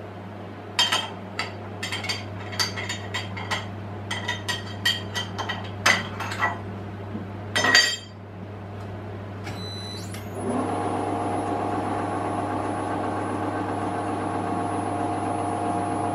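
Scattered metal clinks and knocks as a hook spanner works the milling machine's ER40 collet and the tap is taken out, the loudest knock near eight seconds in. About ten seconds in, the milling machine's electric motor starts and runs with a steady hum and a thin high whine.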